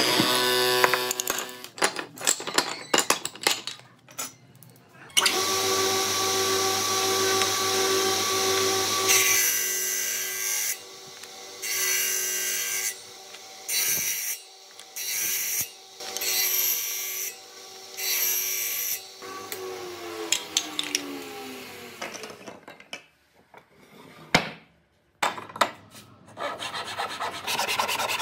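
A woodworking machine's motor runs steadily. A board is pushed against its spinning disc about six times, each cut roughly a second long, and then the motor winds down with falling pitch. Near the end a hand saw starts rasping back and forth through a small piece of wood.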